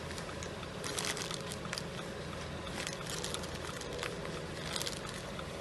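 Steady low hum inside a parked car, with a few faint, irregular clicks and ticks.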